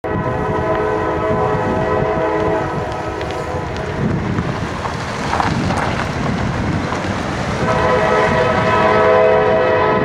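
Diesel freight locomotive's multi-chime air horn sounding as the train nears a grade crossing: one long blast that stops about three seconds in, then another that starts about two and a half seconds before the end, over a low rumble from the train.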